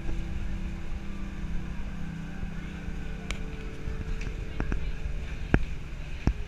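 Public-hall ambience of an aquarium gallery: a low steady hum and rumble under faint murmur of visitors' voices, with a few sharp knocks in the second half, the loudest about five and a half seconds in.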